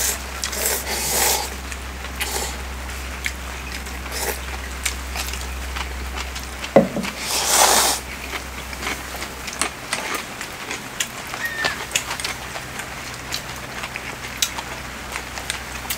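Ramen noodles being slurped in loud bursts, about a second in and again near the middle, over a steady patter of rain with scattered small clicks.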